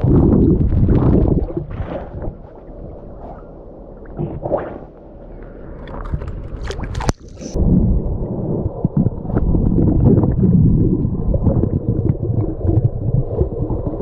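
Muffled water sloshing and gurgling around a GoPro in its housing during snorkelling, a steady low rumble, with a few sharp knocks about seven seconds in.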